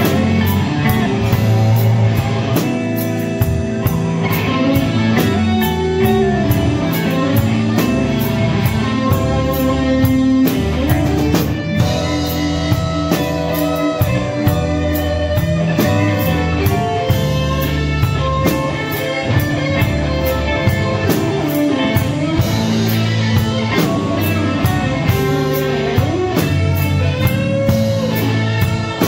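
Live band playing a slow blues: an electric guitar lead with bending notes over bass and a drum kit keeping a steady beat on cymbals.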